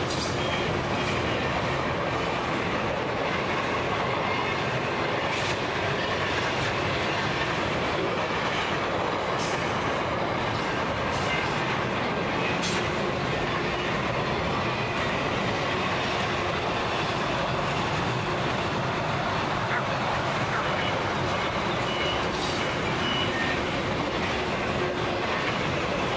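Loaded container wagons of a long freight train rolling past close by: a steady rumble of steel wheels on rail, with scattered clicks and knocks from the wheels and a few short high-pitched wheel squeals near the end.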